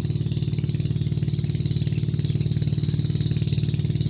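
A small engine running steadily at idle, a fast even putter with a low hum.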